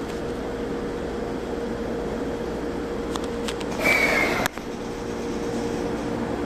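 Steady hum of a train car's onboard equipment while the train stands at a station. About four seconds in there is a short, loud hiss with a slightly falling whistle in it, which cuts off sharply.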